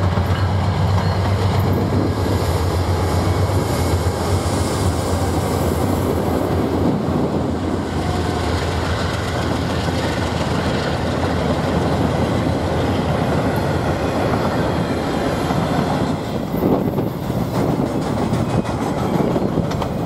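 Norfolk Southern freight train led by GE Dash 9-44CW and Dash 8-40CW diesel locomotives passing, with a low steady engine hum for the first few seconds, then the steady rolling and clatter of intermodal well cars going by.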